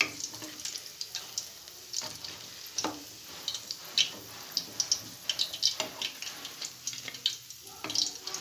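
Gram-flour pakoras sizzling and crackling as they deep-fry in hot oil, with a steady hiss and a dense scatter of small pops. A few louder knocks come from the wooden spatula working in the pot.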